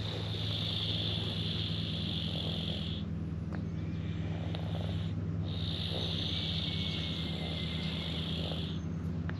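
Stray cat snoring in its sleep, over a steady low hum. A loud high-pitched buzz breaks off about three seconds in and starts again about two seconds later.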